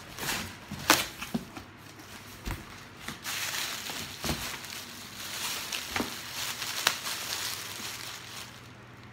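Plastic bag packaging crinkling and rustling as it is handled and pulled from a cardboard box, with a few sharp knocks, the loudest about a second in.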